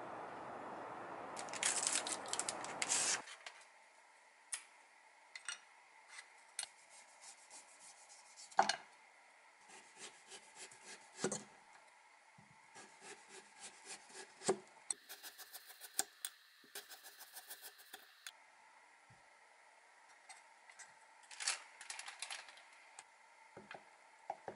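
A kitchen knife cutting a potato on a wooden cutting board: scattered knocks of the blade on the board, then a quick run of thin slicing cuts for about three seconds halfway through as the potato is scored into accordion slices. It opens with a steady rush of outdoor air noise that cuts off about three seconds in.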